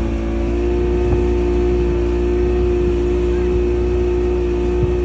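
Motorboat engine running at a steady speed, an unchanging hum over a low rumble.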